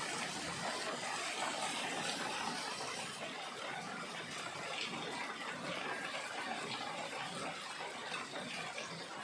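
Rain falling steadily, a continuous hiss of water that eases slightly about three seconds in.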